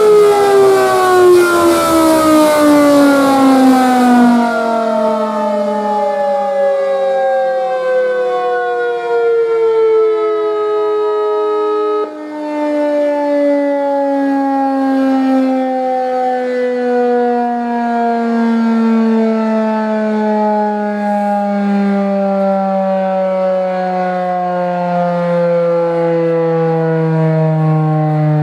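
Outdoor tornado warning sirens (a Thunderbolt 1000B, a 6048, a 2001-130 and a 2T) winding down together, several tones sliding slowly and steadily lower in pitch. One of the tones cuts out about twelve seconds in, and the rest keep falling.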